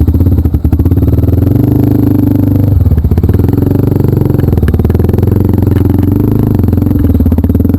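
Motorcycle engine running close by with a fast, even pulse, its note shifting a little a couple of times with the throttle.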